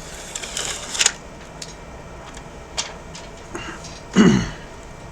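Protective plastic film being peeled off a replacement phone display: a crackling rustle with sharp clicks in the first second, then scattered light ticks of handling, and one louder thump about four seconds in.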